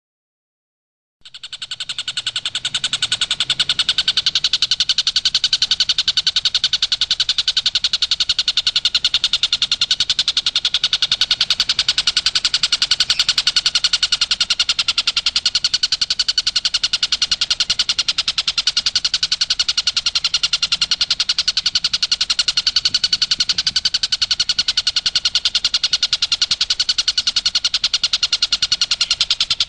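Tengkek buto kingfisher calling in a loud, unbroken, very fast rattling trill that starts about a second in and holds steady: a recorded call played as training audio for songbirds to copy.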